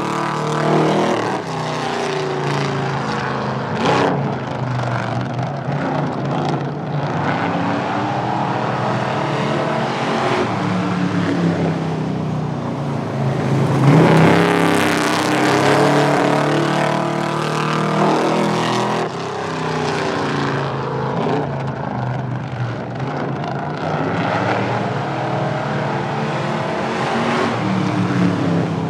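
Spectators' street cars accelerating hard on drag runs, several engines heard at once, loudest about halfway through.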